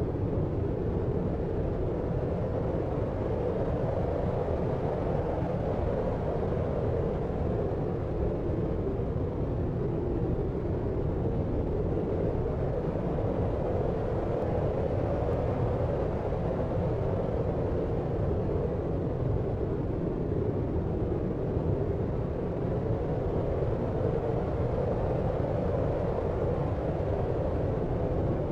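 Deep white noise for sleep: an even, low rumbling hiss, heaviest in the bass and dull in the treble, with no distinct events.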